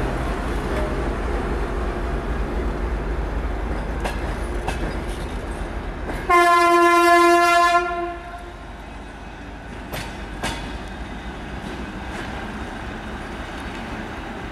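TEP70 diesel locomotive's horn sounding one steady, high-pitched blast of about a second and a half as the train departs, over the low rumble of the locomotive's diesel engine. After it, the passenger carriages roll by with a couple of sharp wheel clicks over rail joints.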